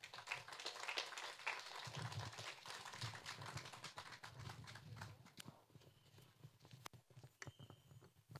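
Audience applauding: many hands clapping at once, thinning out after about five seconds to a few scattered claps.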